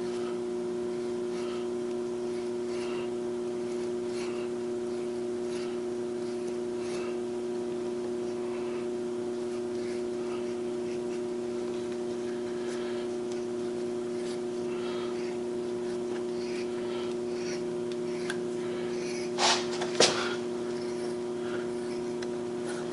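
Hand-tapping a set-screw hole in a metal pulley with a small tap wrench: faint scattered metal clicks over a steady shop machine hum of several tones. Near the end, two louder metal clanks close together as the tool is handled and set down on the steel vise.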